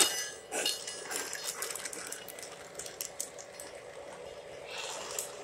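Lionel O gauge model train rolling past close by, its wheels clicking over rail joints and switches over a steady hiss; the clicking thins out after about three seconds.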